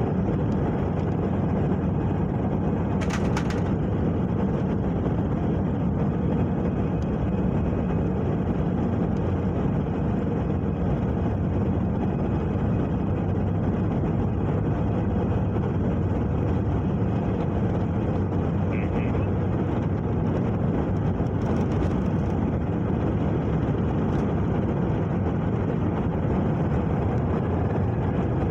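Airliner engines and airflow heard inside the passenger cabin during takeoff and climb, a loud steady rush of noise, with two brief clicks.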